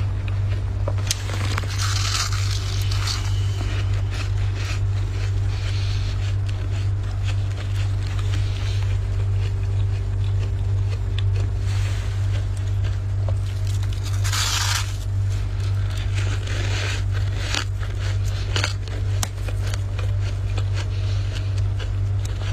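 Dry, flaky freezer frost being scraped loose by hand, with crunching, crackling scrapes coming in bursts. The loudest bursts fall a couple of seconds in and about two-thirds of the way through, over a steady low hum.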